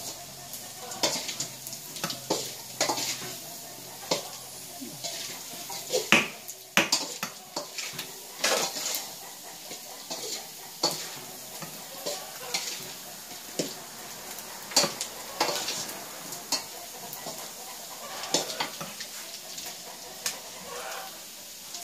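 Large kitchen knife slicing on a round wooden chopping block: irregular knocks of the blade on the wood, about one a second, the loudest a little past the middle.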